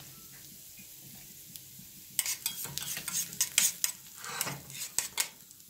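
Metal tongs stirring and scraping diced onions in a stainless steel pan, with quick irregular clinks and scrapes starting about two seconds in, over a faint sizzle of the onions frying.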